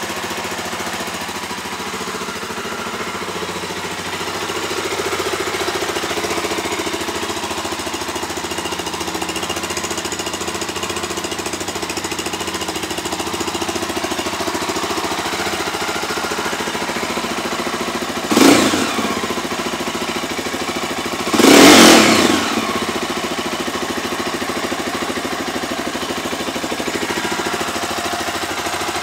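Stels GT 400's engine idling steadily, just started after a repair. Two brief loud bursts break through, about two-thirds of the way in and again three seconds later.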